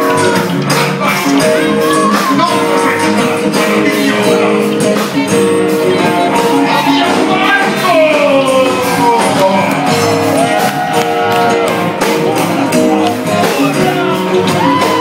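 A live rock band playing with drums on a steady beat, electric and acoustic guitars and bass, and a singer's voice over it.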